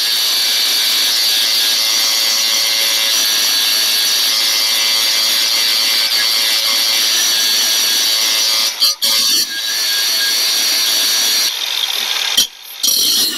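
Makita angle grinder grinding the steel of a tractor pallet fork: a loud, steady high-pitched whine over grinding noise, taking the fork to bare metal ready for tack-welding. The grinder briefly drops out about nine seconds in and again near the end.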